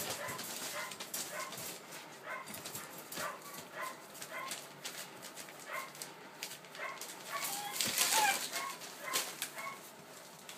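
Rough collie puppies about three months old whining and yipping in short squeaks as they play, with scuffling and clicks from paws on newspaper. About eight seconds in comes a louder cluster of yelps.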